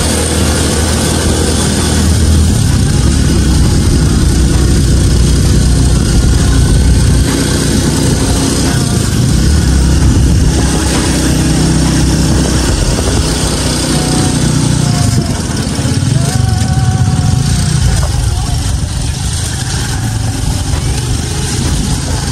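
Small motorcycle-type engine running while the vehicle is under way, its pitch and level shifting with the throttle, with wind and road noise rushing past the open side.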